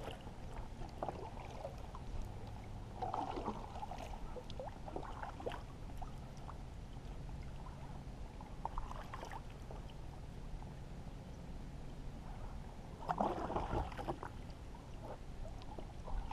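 Paddle strokes through shallow marsh water: the blade dips and swishes through, with water gurgling and dripping off it, a few strokes several seconds apart, the loudest near the end.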